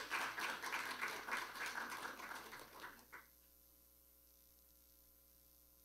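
Audience applauding, which stops abruptly about three seconds in; then near silence with a faint steady electrical hum.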